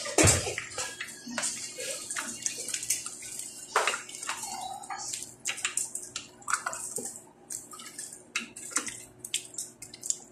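Wooden spatulas stirring chunks of pork and potato in a thick tomato sauce in a stainless steel pot: irregular wet squelching and sloshing, with clicks and scrapes of wood against the pot.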